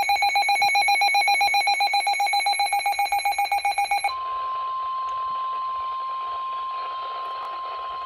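Midland NOAA weather radio sounding a warning alert: rapid, high-pitched pulsed beeping for about four seconds, then a single steady alert tone of about 1 kHz, the NOAA Weather Radio 1050 Hz warning alarm.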